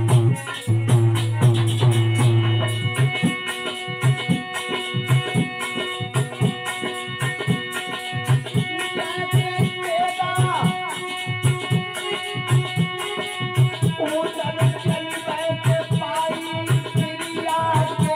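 Instrumental interlude of Alha folk music: harmonium playing held chords and melody over a steady hand-drum beat and rattling cymbals.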